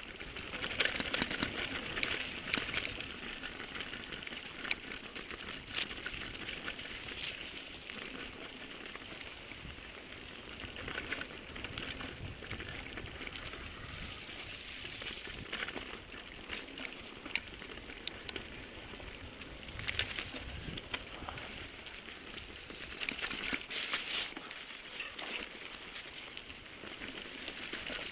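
Mountain bike rolling fast down a dry dirt forest trail: continuous crackle of the tyres over leaf litter and loose ground, with many sharp clicks and knocks from the bike rattling over bumps.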